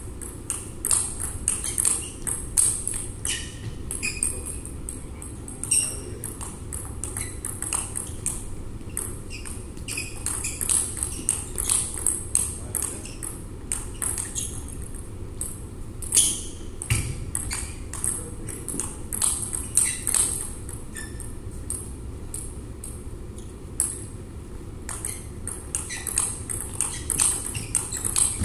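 Table tennis rallies: the ball clicks sharply off the rubber bats and bounces on the table in quick succession, with a few short breaks between points.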